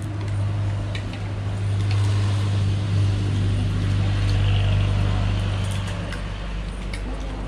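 A low, steady engine hum, like a motor vehicle running close by, that swells and then fades about six seconds in. Faint clicks of cutlery on plates sound over it.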